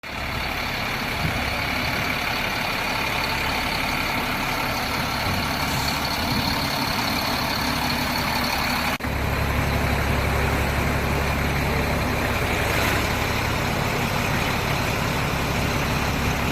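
An engine running steadily, with a thin high whine over it. About nine seconds in the sound breaks off for an instant and comes back with a heavier low rumble.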